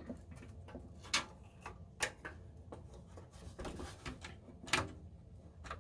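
Scattered light clicks and taps of hands handling cables and parts inside a desktop PC tower case, with a few sharper clicks about one second, two seconds and nearly five seconds in.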